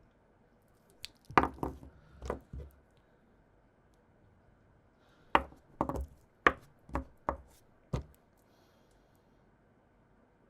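Items being handled and set down on a hard surface: a handful of sharp taps and knocks about a second in, then a second run of about seven knocks a few seconds later.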